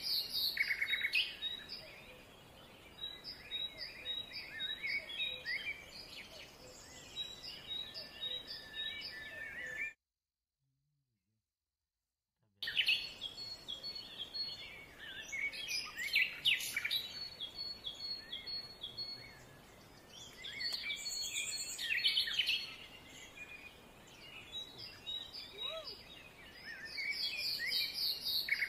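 Forest birds singing and calling, several at once, with chirps and runs of short, evenly spaced high notes. The sound drops out completely for about two and a half seconds near the middle.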